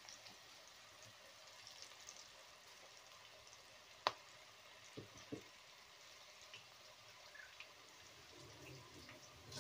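Okra pakoda pieces deep-frying in a kadai of hot oil: a faint, steady sizzle with small scattered crackles. A single sharp click about four seconds in, then two soft knocks a second later.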